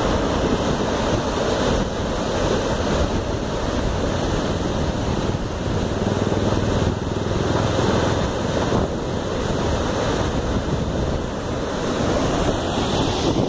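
Steady rushing roar of a high-pressure water jet shooting from a dam's bottom outlet pipe and spraying down into the river below.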